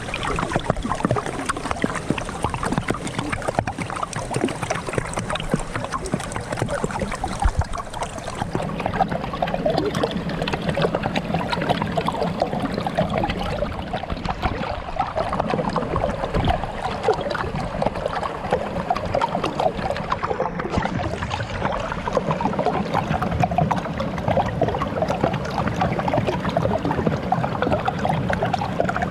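Water flowing and gurgling under a layer of frozen ice, a steady stream of small bubbling and trickling sounds.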